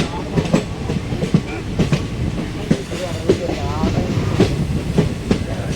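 Indian Railways passenger coach running along the track, heard from on board: a steady rumble of wheels on rails with frequent clattering knocks from the wheels passing over rail joints.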